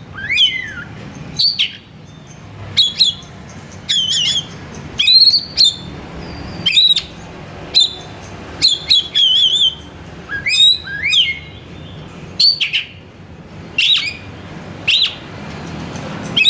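Oriental magpie-robin (kacer) singing: a string of short, loud whistled phrases with quick rising and falling notes, one phrase about every second.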